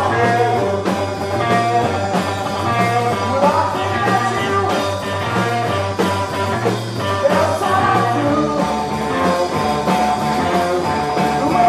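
Live rock band playing at full volume, with electric guitar, bass and a steady drum beat. The bass line shifts to a lower note about eight seconds in.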